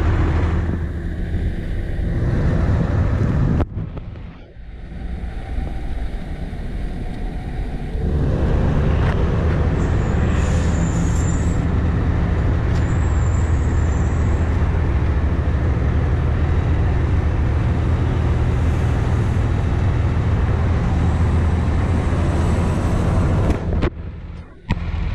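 Cummins ISL inline-six diesel of a 2010 Peterbilt 335 rear-loader garbage truck running steadily at idle. The sound dips for a few seconds about four seconds in. Faint brief high whistles come around ten and thirteen seconds in.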